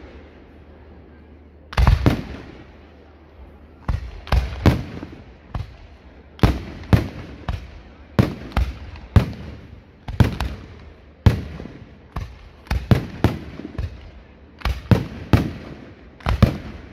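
Fireworks going off: a string of sharp, loud bangs from bursting shells, each with a short echoing tail. A single bang comes about two seconds in; from about four seconds in they come thick and irregular, at times two or three a second.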